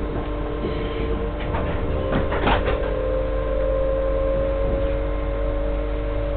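GWR passenger train pulling away, heard inside the carriage: a low rumble and a steady hum of several tones, with a whine that slowly rises in pitch as the train gathers speed. A few clunks come about two seconds in.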